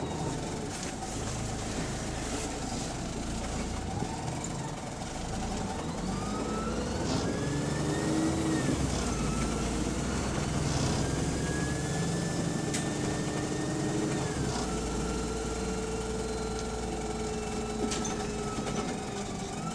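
A bus heard from inside, its engine running with the whine of its Voith automatic gearbox. The whine rises as the bus pulls away from about six seconds in, holds, then drops sharply around fourteen seconds in as the gearbox changes up.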